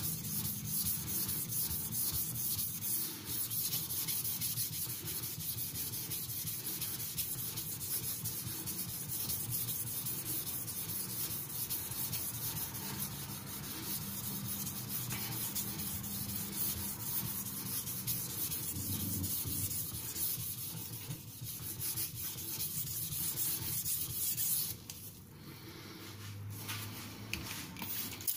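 Tojiro Shirogami nakiri's carbon-steel edge stroked rapidly back and forth on a wet King 6000-grit whetstone with light pressure: a steady fine scraping that stops about 25 seconds in.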